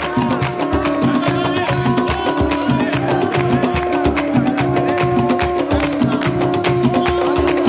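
Background music with a steady beat of drums under held instrumental notes.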